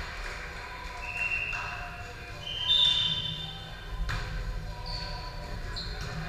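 Athletic shoes squeaking on a gym floor several times in short high squeals, the loudest about three seconds in, with a ball or body thudding once about four seconds in over a murmur of voices.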